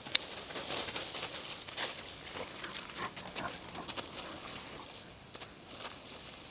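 Dry fallen leaves rustling and crackling as a dog runs through them and then noses about in them, with one sharp crack just after the start.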